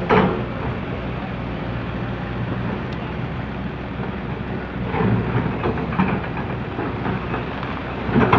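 Komatsu PC200CE excavator's diesel engine running steadily as it digs soil, with a few short louder clunks and scrapes about five and six seconds in and again near the end.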